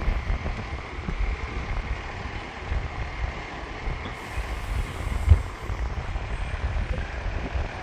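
Wind buffeting the microphone in gusts, with one sharper gust about five seconds in, over a steady airport background rumble and a faint steady high whine.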